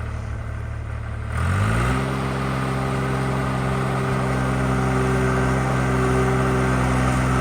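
Skid steer engine running low, then about a second and a half in revving up quickly and holding steady at high revs.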